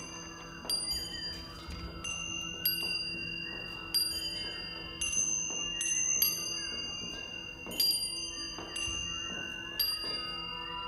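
Orchestral music: high-pitched tuned metal percussion struck about ten times at irregular intervals, each clear, bell-like note left to ring, over soft held low notes and slow sliding pitches.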